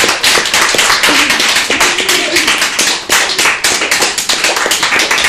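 Hand clapping: many sharp claps in quick succession.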